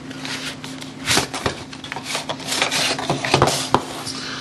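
Cardboard scraping and rustling as a small product box is slid out of its tight cardboard sleeve, in a run of short scrapes from about a second in.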